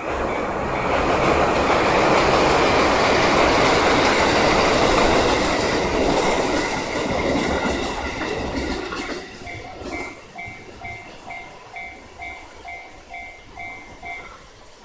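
A train passing over a level crossing, a loud rush of wheels and rail clatter that fades after about eight seconds. Through it rings the crossing's electronic warning bell, an even two-tone ding a few times a second, heard clearly once the train is gone and stopping near the end.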